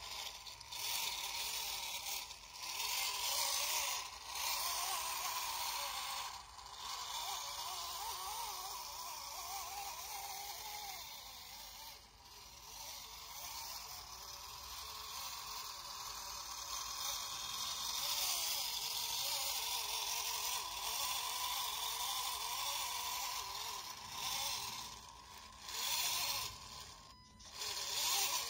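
RC model Opel Blitz truck's small electric drive motor and gearbox whining as it crawls through mud, the pitch wavering with the throttle and briefly dropping away twice.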